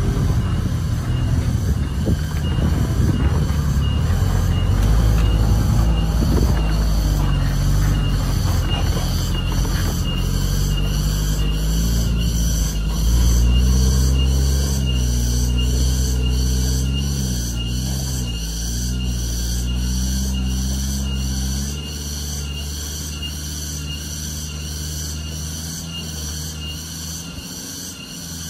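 Small truck's diesel engine labouring in low gear under a heavy load of sugarcane on a muddy track, its pitch rising and falling with the throttle. It drops off about three-quarters of the way through as the truck pulls away.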